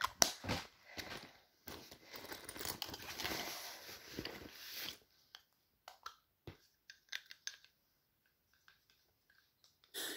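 Bedding fabric rustling and crumpling, with knocks from the phone being handled. The rustle is rough and goes on for about the first five seconds, then a few scattered clicks, then it falls nearly quiet.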